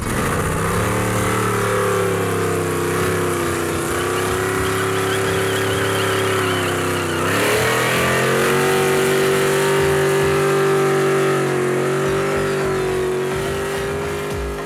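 A pickup truck's engine held at high revs while its rear tyres spin in a burnout. The revs hold steady, drop briefly about halfway through, then climb back and hold again.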